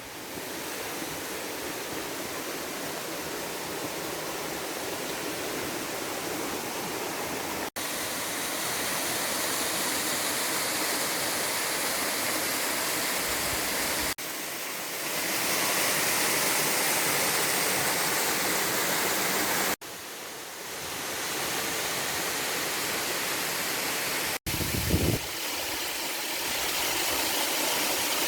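Waterfall rushing steadily, heard in several short takes joined by abrupt cuts. There is a brief low thump near the end.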